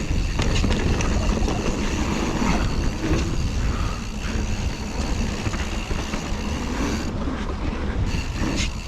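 Full-suspension mountain bike, a Giant Reign SX, being ridden over a rough dirt trail: a steady rumble of tyres on the ground with frequent rattling clicks from the bike.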